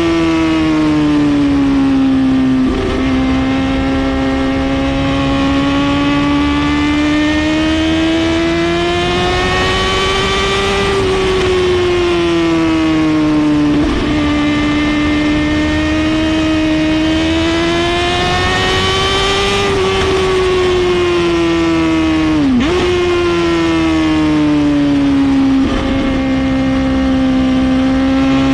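Suzuki GSX-R750's inline-four running through a full Brock's exhaust at high revs, its pitch climbing slowly and falling back several times, with brief dips in the note a few times, one sharp drop and recovery near the end.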